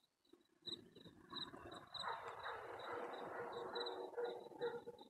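Crickets chirping faintly, a short high chirp repeating about three to four times a second, over a faint low rustling noise that sets in about a second and a half in.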